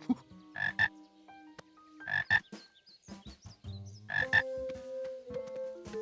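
Cartoon frog croaking three times, each call a quick double croak and each a little louder than the last, as the sound is approached. Soft background music plays underneath.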